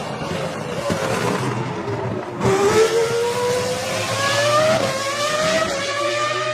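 Ferrari F2004 Formula One car's 3-litre V10 engine: its pitch falls as it slows, then about two and a half seconds in it gets suddenly louder and climbs as the car accelerates. It drops sharply at an upshift near five seconds in and rises again.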